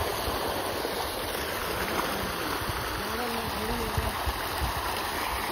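Steady churning splash of a dense shoal of pond-farmed fish thrashing at the surface in a feeding frenzy.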